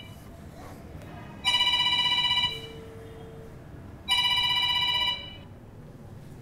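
Electronic phone ringtone: two trilling rings about a second long, each followed by a pause of about a second and a half, signalling an incoming call.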